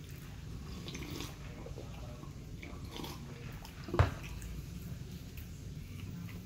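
Close-up mouth sounds of a man drinking from a foam cup and chewing, soft wet clicks and smacks, with one sharp thump about four seconds in.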